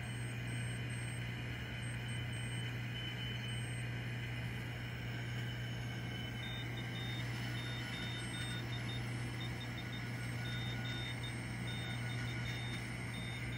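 Direct-conversion receiver audio from a 4SQRP Cricket 40A 40-metre QRP transceiver: steady band noise and hiss over a strong low hum, the common-mode hum of the station's grounding. Faint Morse code tones are keyed on and off, most plainly in the second half.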